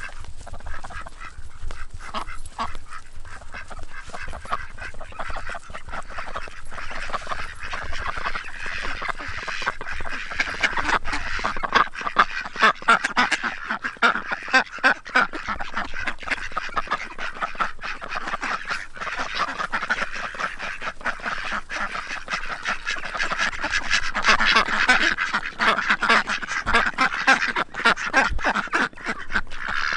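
A flock of mallards and domestic ducks quacking continuously at close quarters, many calls overlapping. The calling grows louder about a quarter of the way in and again near the end.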